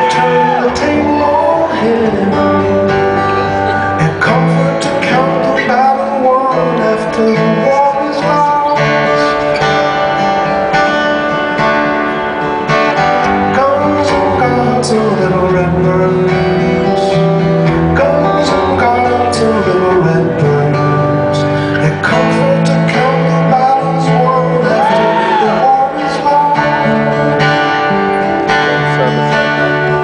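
Two acoustic guitars played together live, strummed and picked in a continuous passage, heard over a concert PA from the audience.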